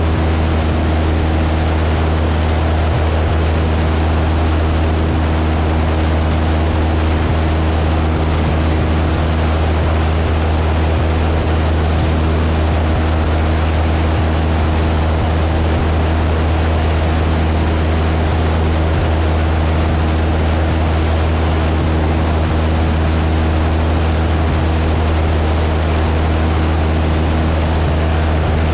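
Cessna 172's piston engine and propeller droning steadily in flight: a constant low hum with a wide rush of air noise over it, unchanging throughout.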